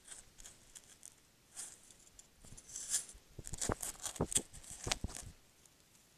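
A red fox cub rubbing and knocking against the trail camera right at its microphone: scratchy rustling with a run of sharp clicks and knocks, thickest between about three and a half and five seconds in.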